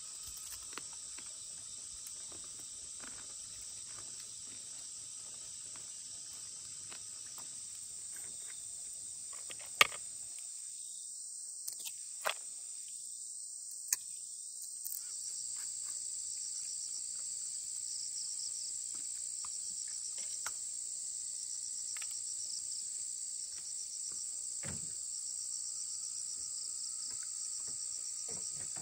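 Steady high-pitched chorus of forest insects, with a faster pulsing chirp joining about halfway through. A few sharp clicks stand out near the middle.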